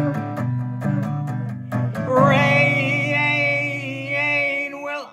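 Acoustic guitar strummed live, a quick run of chord strokes for the first two seconds. Then a held, slightly wavering lead melody comes in over ringing low chords.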